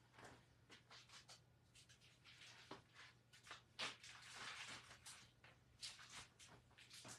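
Near silence: room tone with a steady low hum and faint scattered rustles and light knocks, the loudest about four seconds in.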